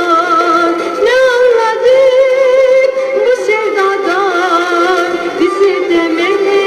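Turkish pop song played from a 45 rpm vinyl single on a turntable: a woman sings with a wavering vibrato over the instrumental backing.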